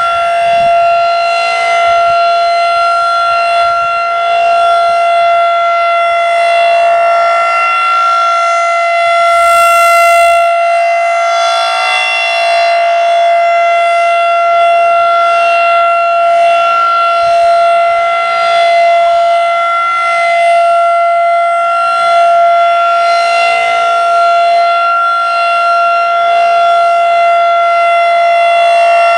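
Federal Signal 2001-SRN battery-powered rotating electromechanical warning siren sounding a steady Alert tone as a test. It holds one pitch while its loudness gently swells and fades as the rotating head sweeps past.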